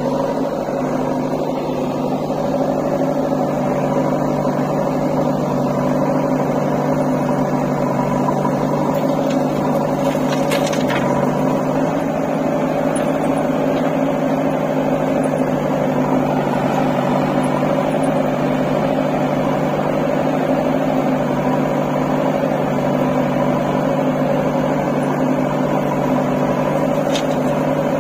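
JCB 3DX backhoe loader's diesel engine running at a steady speed close by, with a couple of brief knocks.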